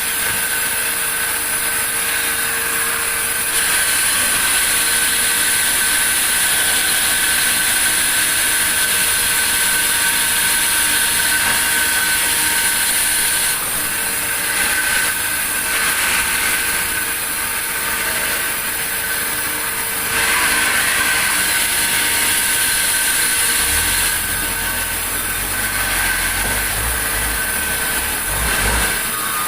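Sawmill saw running steadily with a high, steady whine. A deep low rumble joins in near the end.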